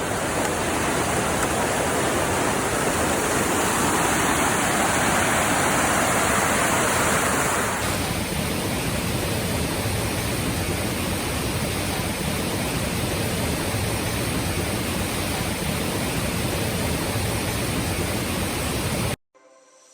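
Steady rush of falling water from a waterfall, changing in tone about eight seconds in and cutting off suddenly near the end.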